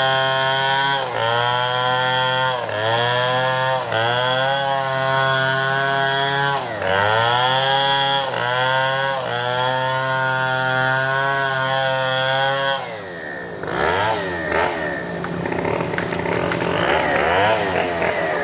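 Chainsaw running at high revs while cutting, its pitch sagging under load and recovering every second or two. After about thirteen seconds the steady tone breaks off into rougher, shifting engine noise.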